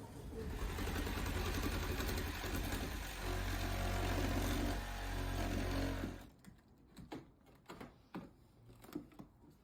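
An electric power tool's motor runs steadily for about six seconds, then stops suddenly. After it, a few light clicks and knocks.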